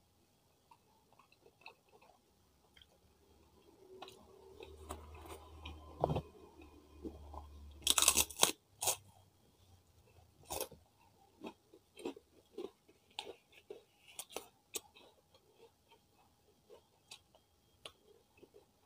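Kerupuk, crisp Indonesian crackers, being bitten and chewed close to the microphone. The loudest bite comes about eight seconds in, followed by a run of separate sharp crunches.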